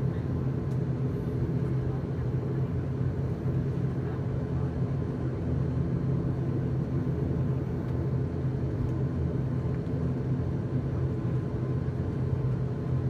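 ATR 72-600's Pratt & Whitney PW127 turboprop engines running at ground idle, heard inside the cabin as a steady low propeller drone.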